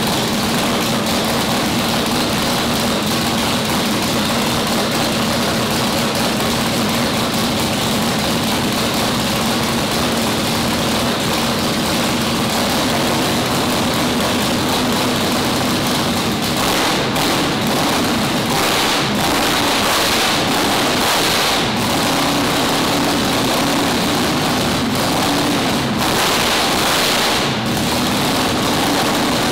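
Big nitrous drag-race engine running steadily at idle, loud and even, its sound shifting slightly in the second half.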